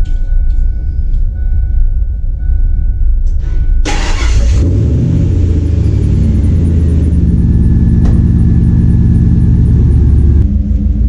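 2003 Ford Lightning's supercharged 5.4-litre V8 cranking and catching about four seconds in, starting easily, then idling with a faint high whine over it that stops near the end. The belt-drive noise that the new idler pulleys were meant to cure is better but not gone.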